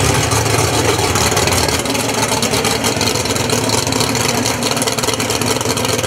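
Drag-race Ford Thunderbird's engine running steadily at idle.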